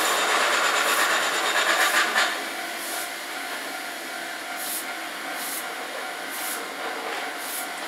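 Railway noise from an electric train, a Kintetsu Urban Liner limited express, approaching along the line. It is louder for the first two seconds, then settles to a quieter, even running sound.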